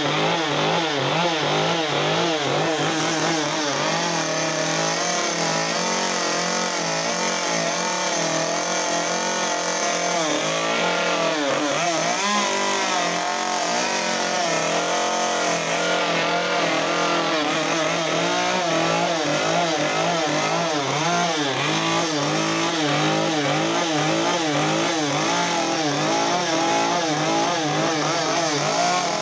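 Gas chainsaw running continuously while carving wood, its engine speed rising and falling constantly as it cuts in and out.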